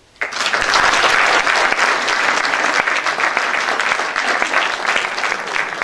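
Audience applauding. The clapping breaks out all at once and keeps up steadily.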